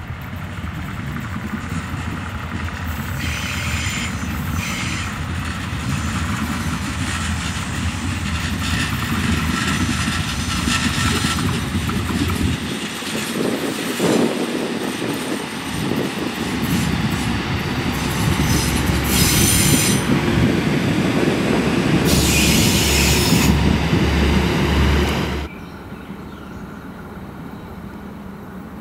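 Diesel multiple unit passing, its engine running and wheels rolling on the rails, with a few short spells of high-pitched wheel squeal. The sound drops off suddenly near the end, leaving a quieter, distant train.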